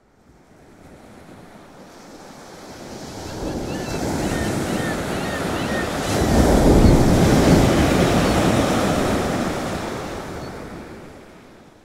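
Ocean surf: a wash of waves that swells up to a peak a little past the middle and fades away to nothing at the end, with a few faint high chirps in the first half.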